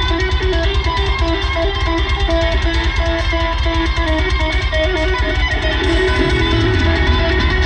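Live heavy metal band playing loud, heard from far back in the crowd. A repeating distorted electric guitar riff runs over heavy bass and rapid, evenly spaced drum hits.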